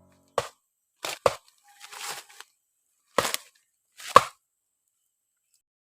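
A blade chopping into wood: five sharp strikes at uneven intervals, two of them close together, with a brief rustle in between.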